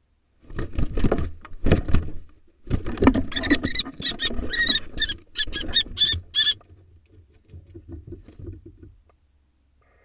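Kestrel and barn owl fighting in a wooden nest box: wing-flapping, thumps and scuffling in the nesting litter. Then, from about three seconds in, a rapid series of shrill kestrel calls, three to four a second, lasting about three seconds. Fainter scratching follows near the end.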